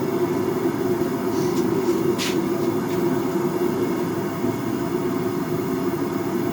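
Majestic three-burner propane forge running steadily, its burners giving an even, unbroken rush. A single light click comes about two seconds in.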